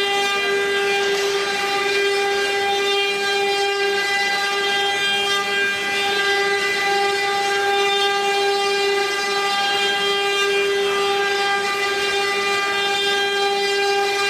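Twelve CNC router spindles running together while engraving cylinders: a steady, high-pitched whine with many overtones over a hiss, holding the same pitch throughout.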